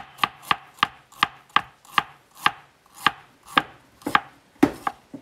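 Chef's knife slicing fresh ginger on a plastic cutting board: a steady run of about a dozen sharp knocks of the blade on the board, about three a second at first and slowing to about two a second toward the end.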